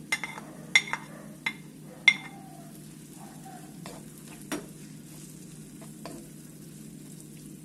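Wooden spoon knocking and scraping sliced sausages off a ceramic plate into a wok, with several sharp knocks in the first two seconds, then stirring them through a frying tomato and onion sofrito with a quiet sizzle and a few softer taps.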